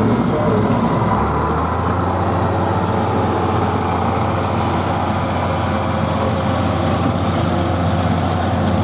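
Engine of a 466-cubic-inch diesel International Harvester hot farm pulling tractor idling steadily at the line before the pull, its low hum shifting slightly about a second in.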